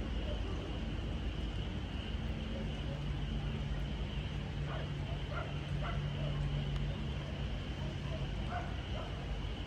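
A dog yipping a few times, in short calls about halfway through and again near the end, over a steady low rumble and hum.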